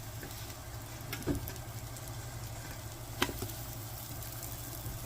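Butter melting and sizzling softly in a pan, with a low steady hum underneath and a few sharp clicks, the loudest a little past the middle.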